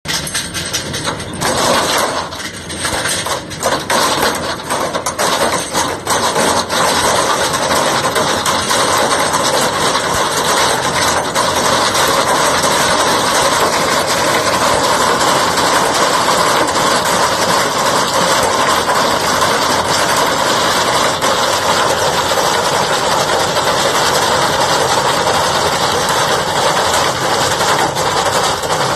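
Tractor engine running with the PTO-driven chain and beaters of a Marshall MS70 muck spreader working behind it. The sound is uneven with irregular knocks for the first several seconds, then settles into a steady mechanical noise.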